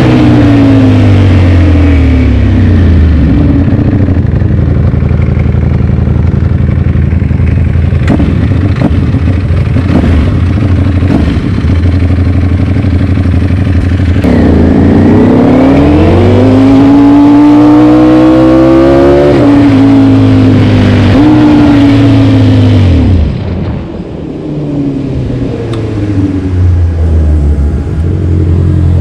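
Ducati Panigale V4 engine through an Akrapovic exhaust: it winds down from speed and settles into a steady low rumble. About halfway through it accelerates with a strong rising pitch for several seconds, then eases off. It drops briefly quieter, then runs with a few smaller rises and falls near the end.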